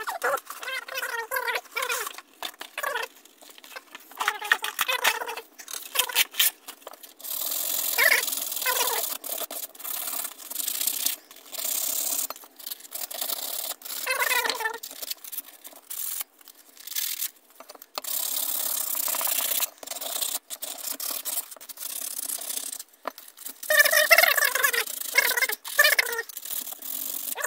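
Sandpaper rubbed by hand over a small stamped sheet-metal cover from an old hand drill, in short back-and-forth scrubbing strokes with pauses between runs and an occasional squeak of the abrasive on the metal.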